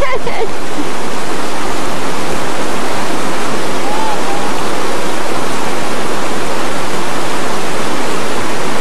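River rapids rushing close by: a loud, steady wash of white water.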